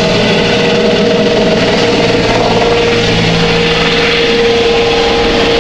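Medical helicopter flying low overhead: loud, steady rotor and turbine noise with a whine that holds its pitch.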